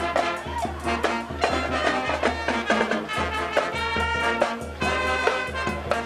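Marching band playing: brass carrying the tune over drums keeping a steady beat.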